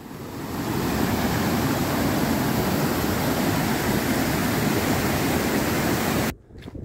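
Fast-flowing stream rushing steadily. It fades in over the first second and cuts off abruptly near the end.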